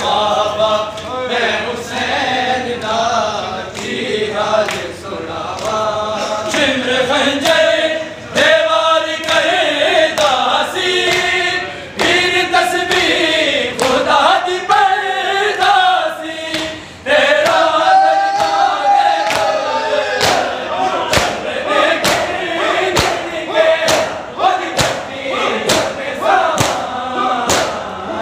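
A group of men chanting a Punjabi noha (Muharram lament) in unison, with the slaps of hands beating on bare chests (matam). The chest-beating is scattered at first and falls into a steady beat over the last third, roughly three slaps every two seconds.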